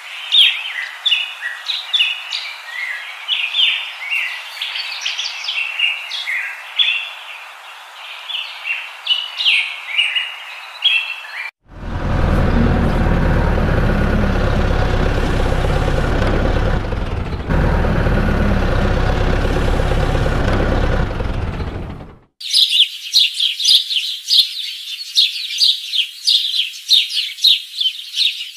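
Birds chirping for about the first twelve seconds. Then a heavy vehicle engine sound runs for about ten seconds, with a brief break halfway. It cuts off suddenly and gives way to dense, fast bird chirping.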